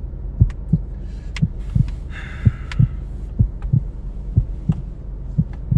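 Heartbeat sound effect: a slow, steady double thud (lub-dub) about once a second over a low hum.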